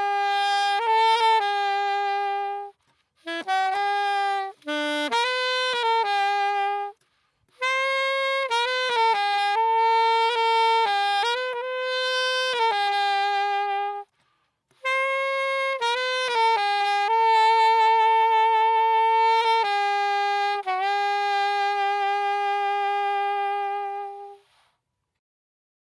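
Solo saxophone playing a slow, unaccompanied melody in phrases with short breathing gaps, the last phrase ending a little before the close.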